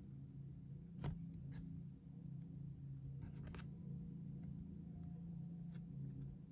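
Scattered light clicks and taps of paper and cardboard being handled, the sharpest about a second in and a small cluster halfway through, over a steady low background hum.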